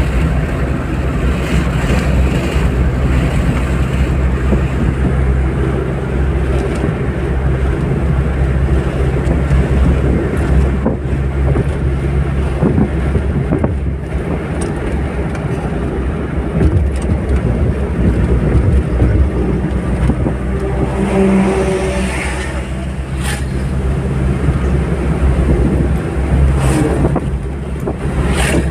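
Steady road and engine noise inside a car's cabin cruising at highway speed, a constant low rumble of tyres and engine, with a few brief sharp clicks in the last third.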